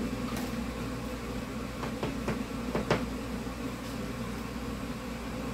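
Steady low mechanical hum of a kitchen appliance or fan, with a few faint clicks and knocks of things being handled on the counter.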